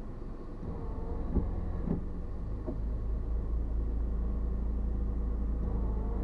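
Car driving, heard from inside the cabin: a steady low rumble of engine and road noise, with a few faint knocks in the first few seconds.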